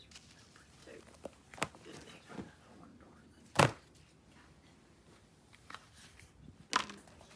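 Scattered handling noises in a small room: a few sharp knocks and clicks, the loudest about three and a half seconds in and another near the end.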